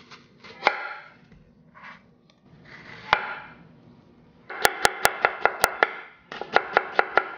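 Kitchen knife cutting a peeled Korean pear on a wooden cutting board: a few slower slices through the crisp flesh, then, about four and a half seconds in, fast even chopping at about five strokes a second as the slices are cut into matchsticks, with a short break near the end.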